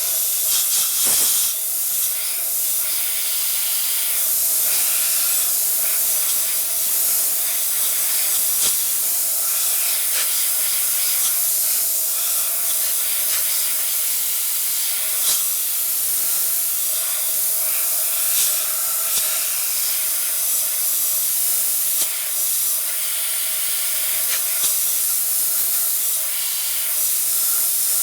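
Compressed air hissing steadily from a shop air line, blown over a hot aluminum plate to cool it down.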